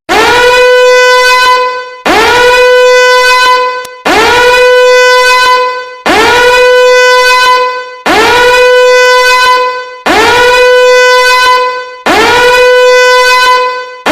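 A loud horn blast sound effect repeated seven times, one every two seconds or so: each note slides up at the start, holds one steady, buzzy pitch with many overtones, then fades out.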